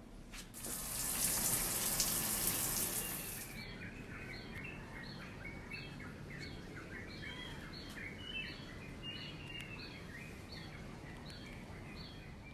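An outdoor shower running for about three seconds, a rush of spraying water that cuts off abruptly. Then a steady run of small chirping calls, about two a second.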